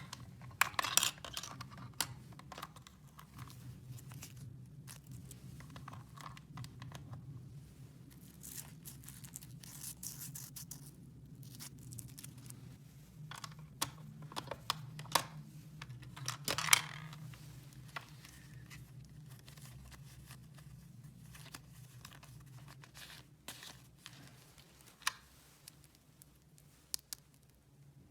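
Small plastic toy pieces and packaging being handled: scattered light clicks and short bursts of crinkling and tearing, the loudest about a second in and around the middle, over a faint steady low hum.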